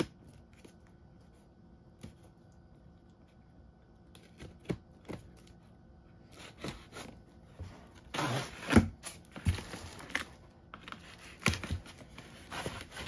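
Cardboard box being opened by hand: scattered clicks and light scrapes, then louder tearing and scraping of tape and cardboard about two-thirds of the way through.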